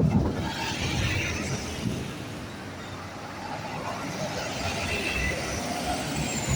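Bus terminal traffic: diesel bus engines running and moving past as a steady rumble that eases slightly midway.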